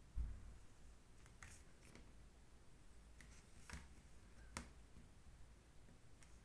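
Plastic set square and ruler being shifted and set down on paper: a soft low thump just after the start, then a few faint clicks and short scrapes.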